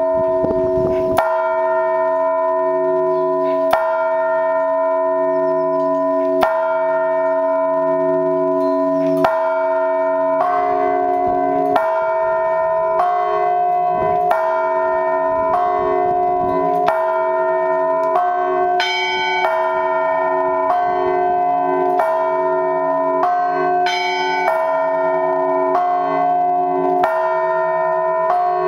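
Orthodox church bells rung by hand in an everyday (weekday) ringing: a deep announcing bell struck slowly, about every two and a half seconds, then from about ten seconds in medium bells joining in a quicker pattern over the ongoing hum.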